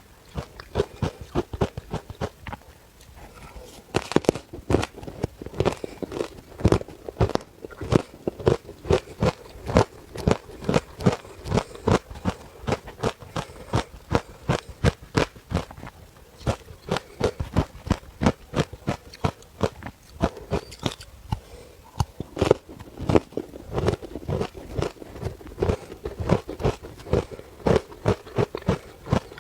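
A person biting and chewing matcha shaved ice, a fast run of crisp ice crunches a few per second, with a short lull about three seconds in.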